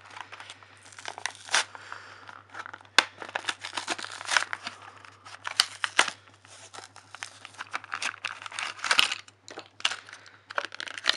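A cardboard toy box with a clear plastic window being torn and crinkled open by hand, in irregular rustles with sharp crackles and snaps.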